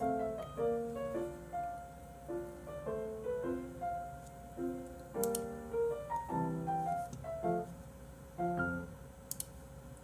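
Soft background piano music: a gentle melody of single notes and small chords.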